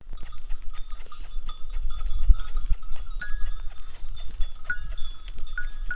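Bells on a herd of sheep and goats clinking and jingling unevenly as the animals move, with several bells sounding at once, over a low rumble.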